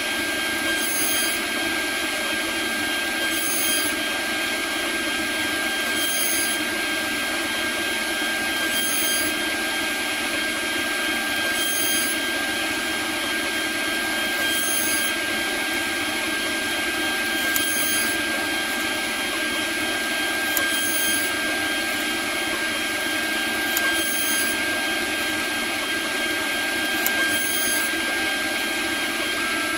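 CNC router spindle running steadily with a constant high whine as its small end mill cuts Delrin, throwing out plastic chips. A high hiss swells briefly about every three seconds.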